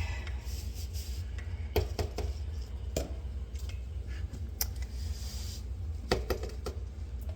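Scattered clinks and knocks of dishes and kitchen things being handled, with a brief hiss about five seconds in.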